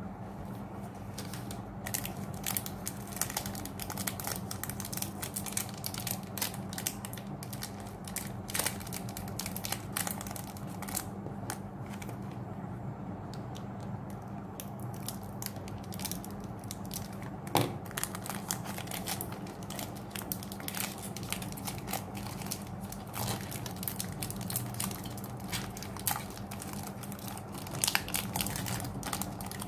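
Foil wrappers of Pokémon TCG booster packs crinkling and tearing as they are cut open and handled, with irregular crisp crackles throughout and one sharper snap about halfway through.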